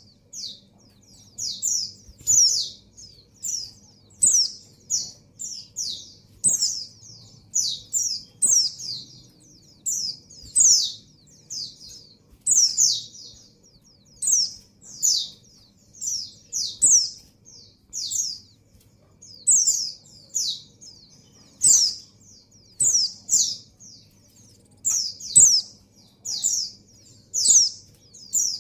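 Female white-eye (pleci) calling over and over: short, high chirps that sweep quickly downward, often in twos or threes, about one a second. It is the call of a female in breeding condition calling for a male.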